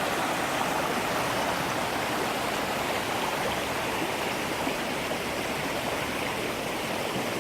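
Stream water babbling and rushing over rocks, a steady even flow.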